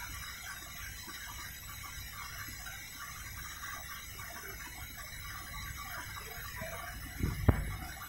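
Siemens iQ100 front-loading washing machine running on its spin programme, a steady low hum from the drum and motor; the motor noise is called too much, alongside a suspected control-board fault. A single sharp knock about seven and a half seconds in.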